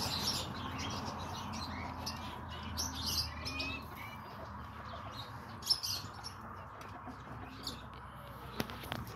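Birds chirping on and off in short high calls, with a sharp click about halfway through and another near the end.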